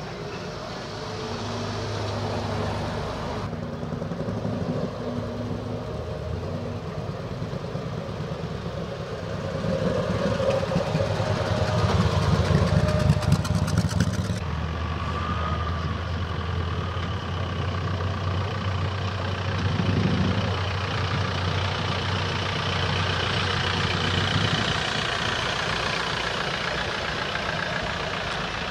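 Engines of classic vehicles running as they roll slowly past one after another. The loudest passes about ten to fourteen seconds in, and another engine runs steadily after it.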